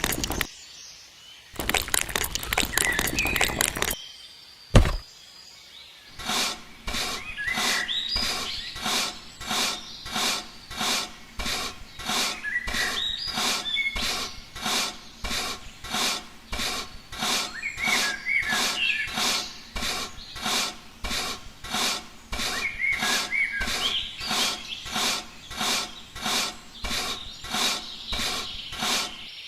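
A long, even series of short scraping or rubbing strokes, about three every two seconds, with birds chirping. A single sharp knock comes about five seconds in.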